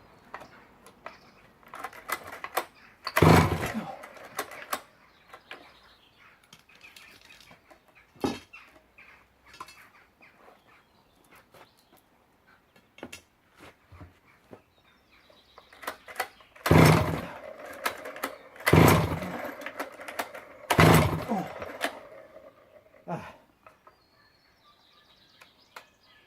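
Danarm 110 two-stroke chainsaw being pull-started on choke: a few short, loud bursts as the starter cord is yanked, the last three about two seconds apart, with the engine not catching and running steadily.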